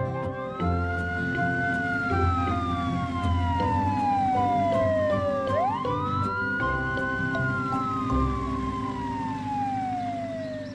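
Two long siren-like wails, each rising quickly and then slowly sinking in pitch, the second starting about halfway through, over light background music.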